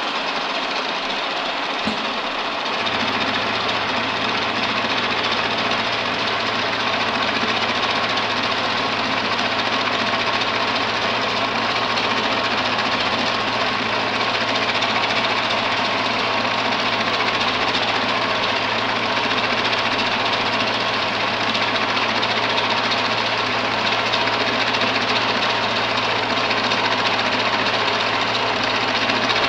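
Universal milling machine running, its end mill cutting a step along a metal bar held in a vise: a steady mechanical din. About three seconds in a steady low hum joins in.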